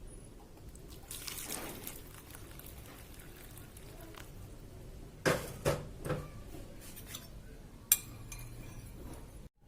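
Hot water poured and splashing in a container, with a few sharp clinks of kitchenware about five to six seconds in and a louder knock near eight seconds.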